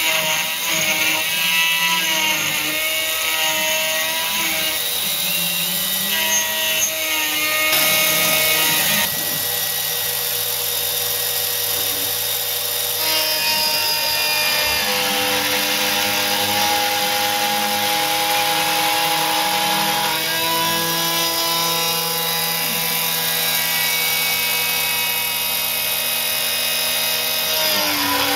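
CNC router spindle milling an aluminium workpiece: a steady high spindle whine over the cutter's chatter, first while clearing a pocket, then while cutting the outer contour. The pitch and mix of the whine change at about nine and thirteen seconds in.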